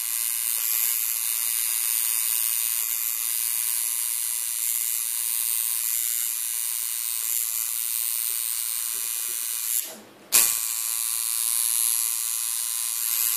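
Electric tattoo machine buzzing steadily at a high pitch as its needle lines the design into the skin. About ten seconds in it cuts out for half a second, then starts again with a sharp click.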